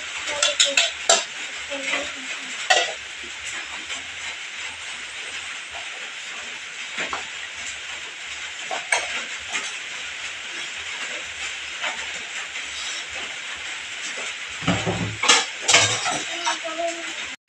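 Ceramic bowls, plates and a metal spoon clinking and clattering as dishes are handled and cleared from a table, over a steady hiss. The clatter comes in scattered knocks and is loudest near the end.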